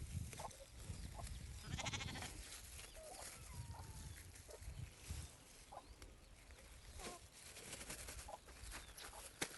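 A faint animal call about two seconds in, with scattered small clicks and knocks.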